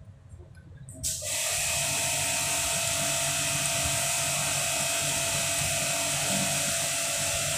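A small electric motor running steadily with a high hiss. It starts suddenly about a second in and stops suddenly near the end.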